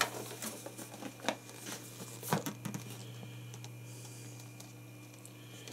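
Cardboard carton and packing paper being handled as a boxed camcorder is lifted out: scattered rustles and knocks in the first half, the loudest a little past two seconds in, then quieter. A steady low hum lies underneath.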